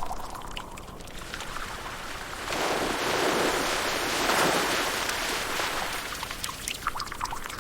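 Liquid pouring and splashing: a continuous rush that swells about two and a half seconds in and eases off after, with scattered drips and small clicks near the end.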